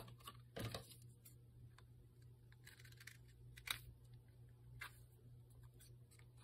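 Faint paper-handling sounds: a few light scattered clicks and rustles as paper tags and patterned paper are picked up and moved about, over a steady low hum.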